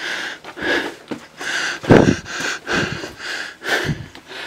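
A person breathing hard and fast close to the microphone, about two breaths a second, with two louder, deeper gasps, one about midway and one near the end.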